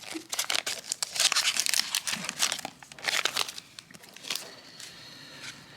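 Foil booster-pack wrapper crinkling and tearing as a pack is opened, a dense crackle that dies down after about three and a half seconds.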